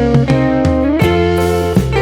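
Background music: a guitar tune playing clear, sustained notes that change about every half second.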